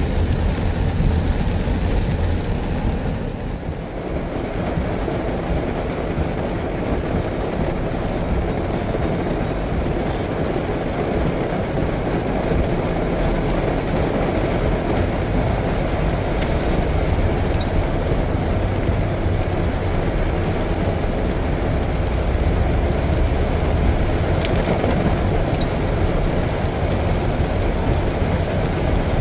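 Steady road traffic noise: a continuous low rumble of passing vehicles, dipping briefly about four seconds in.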